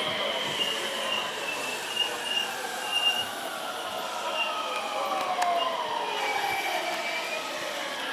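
JR West 223 series 2000 electric train braking into a station. Its motor whine falls steadily in pitch as it slows, over intermittent high brake squeals.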